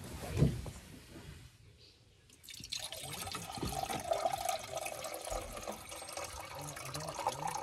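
Water poured from a stainless steel flask into the cup of a camping gas stove, starting about three seconds in and running steadily, its pitch edging up slightly. A single knock about half a second in.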